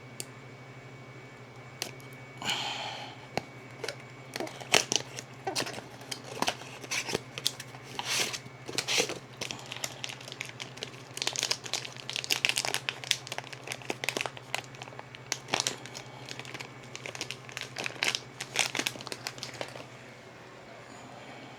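Plastic packaging crinkling and crackling in irregular handled bursts as a UV ink cartridge is unwrapped, over a steady low hum.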